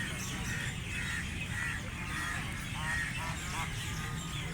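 Ducks quacking over and over, short calls about two a second, over a steady low rumble.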